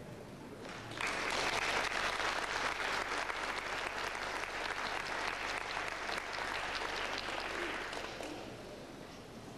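Audience applauding, many hands clapping at once. It breaks out suddenly about a second in and tapers off near the end.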